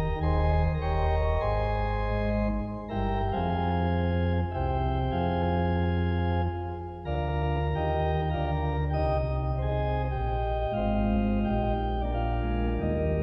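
Organ playing a hymn tune alone in slow, held chords over a moving bass line, with brief breaks between phrases about three and seven seconds in.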